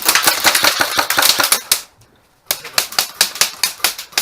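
Airsoft guns firing a rapid string of sharp shots, about seven a second, stopping for about half a second two seconds in, then firing again.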